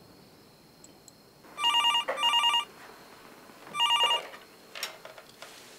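Corded landline telephone ringing in a double-ring pattern: two quick rings, a pause, then a third ring. A short click follows about half a second later.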